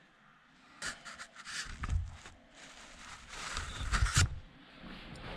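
Scattered knocks and scrapes of sheet-metal body panels being handled and fitted, loudest about four seconds in.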